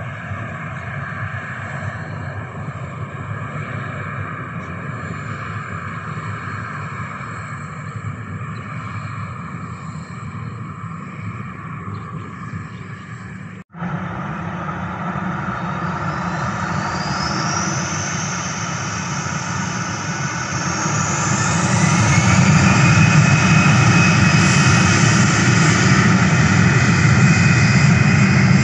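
Jet airliner engines heard across an airfield. First a steady, distant hum; then, after a cut about halfway, the engines spool up with rising whines and the noise grows loud and stays there, as for takeoff thrust.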